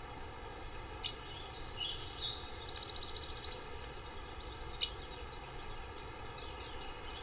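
Forest ambience of birds chirping and calling, with rapid trilling calls over a steady background hiss. Two sharp clicks stand out, about a second in and just before five seconds.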